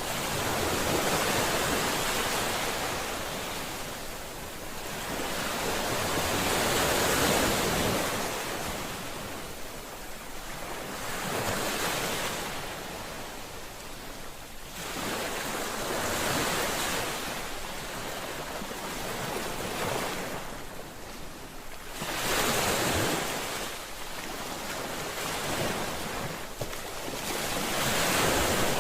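Ocean waves breaking on a shore, a steady hiss of surf that swells and falls back every few seconds as each wave comes in and washes out.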